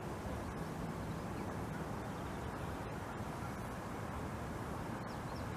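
Steady low rumble and hiss of outdoor background noise, with a few faint high chirps.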